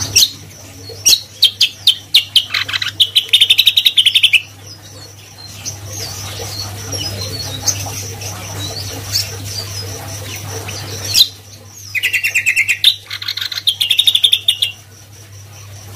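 Caged cucak kombo singing vigorously in two bursts of rapid, trilled notes, one at the start and one about eleven seconds in, with scattered single chirps between. A steady low hum runs underneath.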